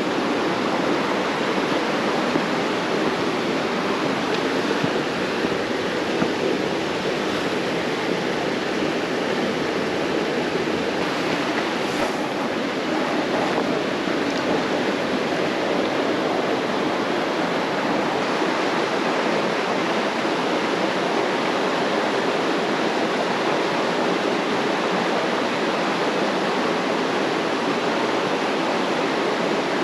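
Creek water flowing, a steady even rush of noise.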